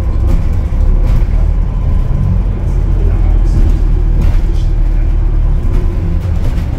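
RATP London bus ADH45286 running, heard from on board: a steady, loud low rumble with a faint thin whine above it.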